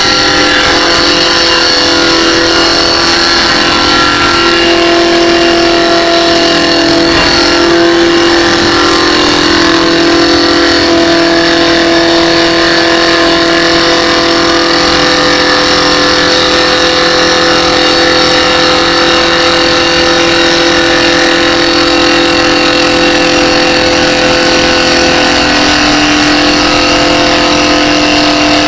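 CNC wood lathe running, its motors giving a loud, steady whine of several held tones over a noisy hum, with a slight shift in pitch about four seconds in and again near the end.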